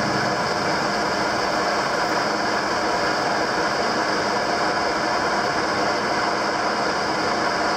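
Metal lathe running with the power feed engaged while its tool takes a finish facing cut across a metal block held in a four-jaw chuck: a steady, even mechanical whir and hum.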